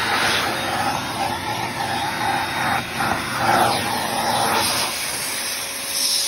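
A 1.5-gallon, 2-horsepower wet/dry shop vac running, its suction rushing steadily and wavering as the nozzle is worked over the car's floor carpet.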